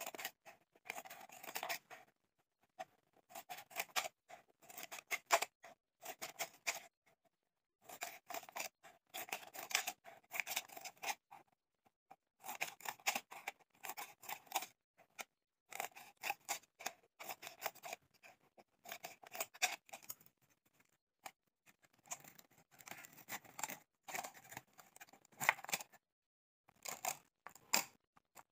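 Scissors snipping through the thin plastic wall of a small soda bottle, cutting it into strips. The snips come in quick runs of a second or two, with short pauses between them.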